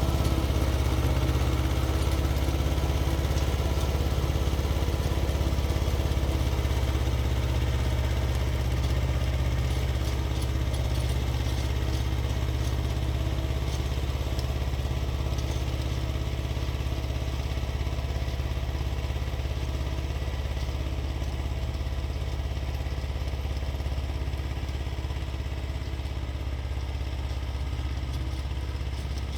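Xingtai 220 compact tractor's diesel engine running steadily under load, driving a 1.3 m rotary tiller, gradually getting fainter.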